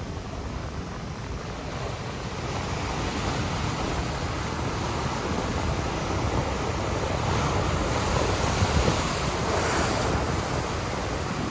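Heavy ocean surf: large waves breaking and washing, a steady rushing that grows louder over the first several seconds, with wind buffeting the microphone.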